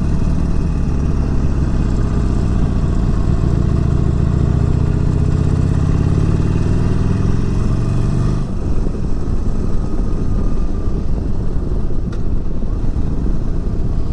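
Harley-Davidson Forty-Eight's V-twin engine heard from the rider's seat while riding, its note rising steadily for about eight seconds as the bike picks up speed. The engine note then drops back, leaving wind and road rumble.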